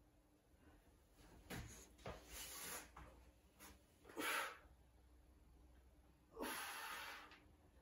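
A woman breathing out during a bodyweight floor routine: about four short, breathy exhalations over faint room tone. The loudest comes about four seconds in and the longest near the end.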